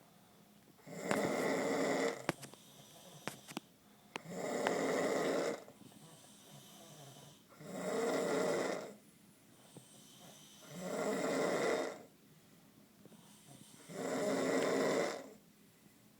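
A young woman snoring loudly in deep sleep: five long snores, one about every three seconds, each lasting over a second, with quiet breaths between.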